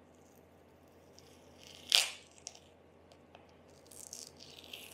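Masking tape cut with a utility knife and torn off a freshly painted scooter part: one sharp tearing rip about two seconds in, then softer crinkling rustles of tape near the end.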